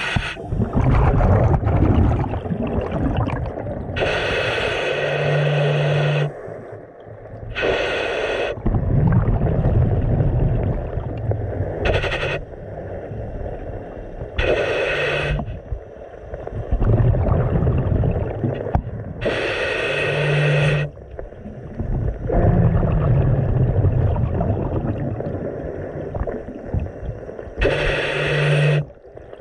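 Scuba breathing heard underwater through a regulator: a loud hissing rush comes every few seconds, with a low bubbling rumble between.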